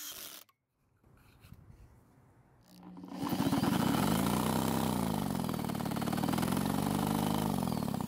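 Redmax EBZ8500 backpack blower's two-stroke engine being turned over with its spark plug out and grounded against the cylinder fins for a spark check. From about three seconds in, a steady whirring with fast pulses and a pitch that rises and falls twice.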